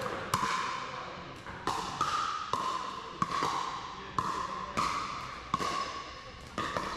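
Pickleball paddles hitting a plastic pickleball during a rally, a sharp hollow pop roughly every half second to second, each ringing out in a large gym hall.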